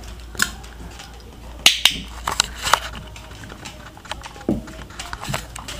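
Irregular sharp clicks and taps from an English mastiff puppy's claws on a hard floor and a dog-training clicker, with a sharp pair of clicks just under two seconds in and a short low thump about four and a half seconds in.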